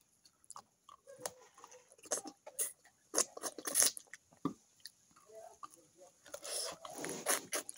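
Close-up mouth sounds of a person eating fish moqueca with rice by hand: chewing and lip-smacking in irregular wet clicks. Louder clusters come about three to four seconds in and again near the end.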